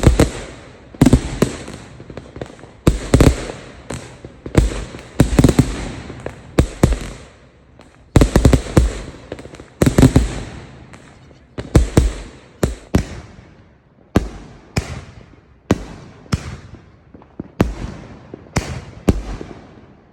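Fireworks going off in rapid succession: a string of sharp bangs, roughly one or two a second, each fading away quickly before the next.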